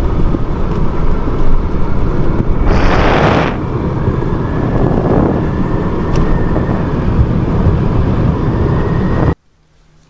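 A vehicle on the move, its running noise mixed with loud wind buffeting the microphone; a brighter hissing rush swells about three seconds in. The sound cuts off suddenly near the end.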